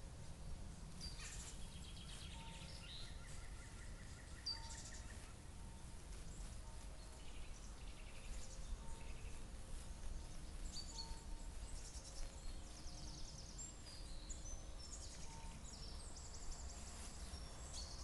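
Several songbirds singing and chirping in the trees, a mix of short high chirps and rapid trills. A faint steady low rumble runs underneath.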